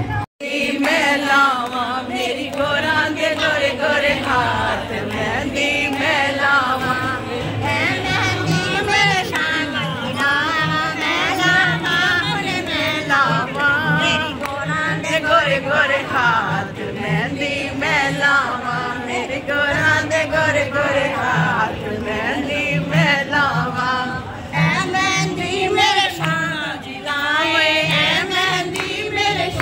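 A group of women singing a devotional song together, one voice close by and loudest, over a steady low beat.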